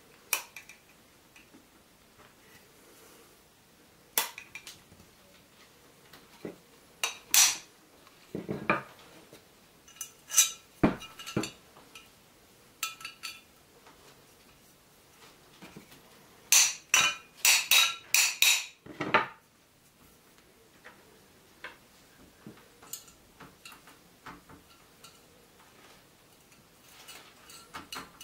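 Square steel profile tubes clinking and knocking as they are handled and slid together on a wooden bench. The strikes are sharp and scattered, with a busy run of them about two-thirds of the way through. Lighter metal ticks come near the end as a bolt and wing nut are fitted.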